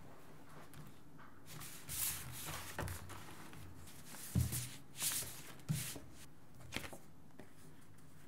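A pile of photographic prints rustling and sliding as hands sort through them on a table, in a handful of short bursts with a few soft thuds, the strongest about four and a half seconds in.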